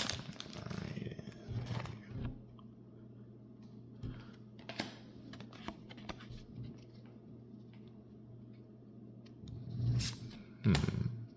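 Trading cards being handled quietly: soft rustling and light scrapes as cards are slid one behind another, with a few thin ticks and a louder rustle about ten seconds in.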